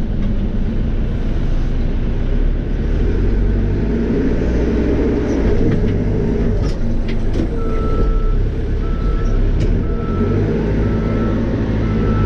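Cat 430E backhoe loader's diesel engine running steadily under work. From a little past halfway its reversing alarm beeps about once a second.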